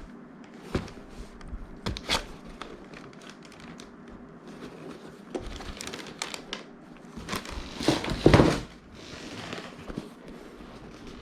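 Packaging crinkling and rustling as a box of mountain-bike shoes is unpacked, with scattered clicks in the first few seconds and a louder rustle about eight seconds in.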